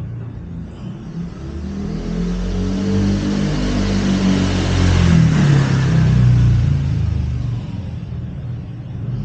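A motor vehicle's engine passing, swelling to a peak about two-thirds of the way through and then fading.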